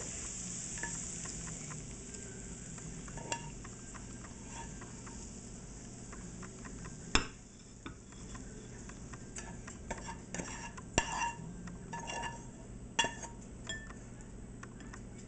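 Stir fry being scraped out of a hot nonstick skillet into bowls: a utensil scraping and knocking against the pan in scattered strokes, with a faint sizzle fading over the first several seconds. The sharpest knock comes about seven seconds in, and a run of scrapes follows a few seconds later.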